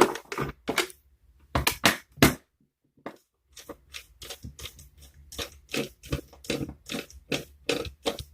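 A screwdriver backing screws out of a power bank's plastic case: a quick run of short, sharp scraping strokes, about three a second, with two brief pauses.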